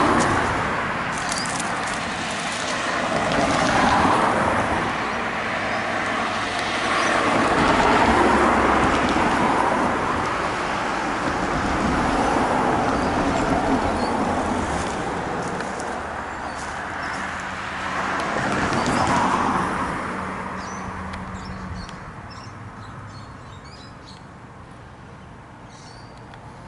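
Road traffic: cars passing one after another, each swelling and fading, thinning out about three quarters of the way through. Small birds chirp faintly near the end.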